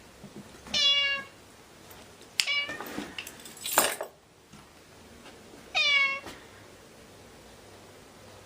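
Domestic cat meowing three times in short, slightly falling calls, about a second in, at two and a half seconds and at six seconds. A brief noisy burst comes about four seconds in.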